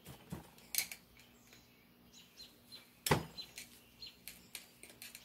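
Scattered small metal clicks and clinks as a steel circlip is worked along a motorcycle transmission main shaft with a small pry bar, some with a brief high ring. The loudest clink comes about three seconds in.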